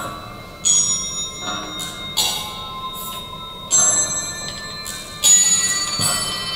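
Bell-like chimes in a film soundtrack, played over theatre speakers: a struck, ringing tone with high overtones sounds about every second and a half, each one dying away.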